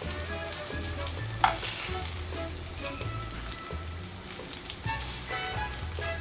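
Spice-coated pineapple slices sizzling as they fry in oil in a hot pan, with the clatter of being stirred or lifted, and one sharp sound about a second and a half in.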